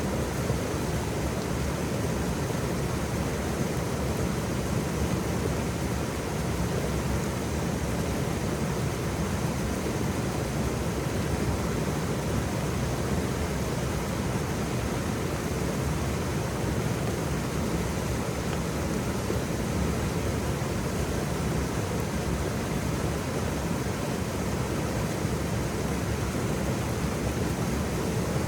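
Waterfall: a steady, even rush of falling water, strongest in the low range, without pauses or changes.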